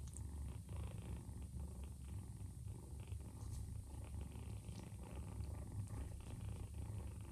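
A nursing cat purring steadily: a low, continuous rumble that flutters slightly in strength.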